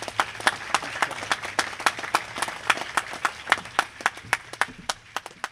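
Applause from a small crowd, with individual hand claps distinct, thinning out and fading near the end.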